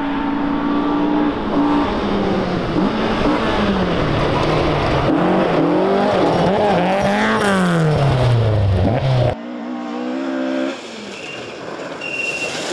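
Mk2 Ford Escort rally car driven hard on loose gravel: the engine revs up and drops back repeatedly through gear changes, then falls away in pitch as the car goes past. About nine seconds in, the sound cuts suddenly to a second Mk2 Escort, quieter and further off, as it approaches.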